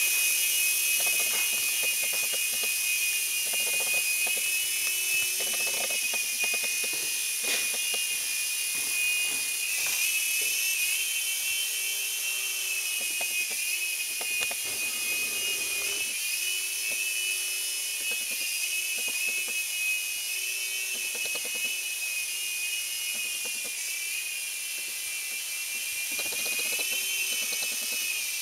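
Phoenix 3-channel mini RC helicopter in flight: its small electric motors and spinning rotors give a high, steady whine that wavers slightly in pitch as the throttle changes.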